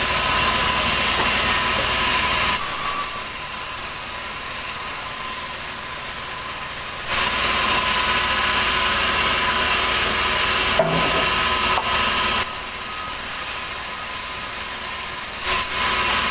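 Sawmill saw running under load, cutting a heavy ulin (Bornean ironwood) log, with a steady high ringing whine over the noise. It drops to a quieter running sound twice and comes back loud, as the blade goes out of and back into the wood, with a sharp knock near the middle.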